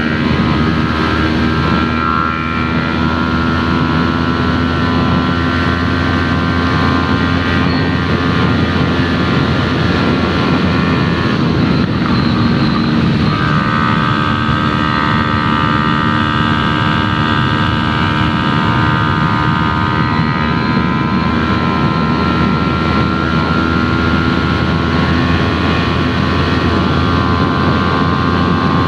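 Yamaha YZF-R3's parallel-twin engine running through an Arashi aftermarket exhaust while the bike is ridden at a steady engine speed. The engine note breaks off briefly about twelve seconds in, then picks up again and holds steady.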